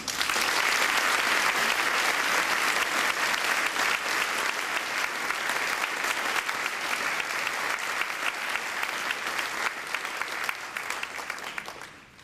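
Audience applauding: a dense patter of many hands clapping that starts all at once and fades away over the last second or two.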